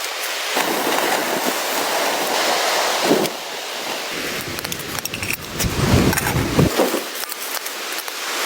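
Blizzard noise: a steady hiss of wind and driven snow, with gusts rumbling and buffeting, heaviest a little past the middle.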